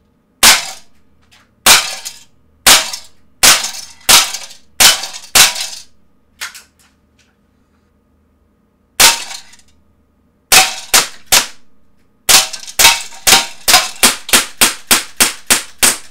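Umarex Desert Eagle .177 CO2 pellet pistol firing a long string of sharp, loud pops. It starts with seven evenly spaced shots, pauses, then fires one lone shot and a quick three. It finishes with a fast run of about three shots a second.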